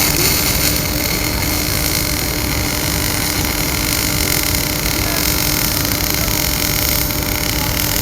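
Flux-cored arc welding: the wire arc gives a steady, loud hissing noise over a faint constant hum.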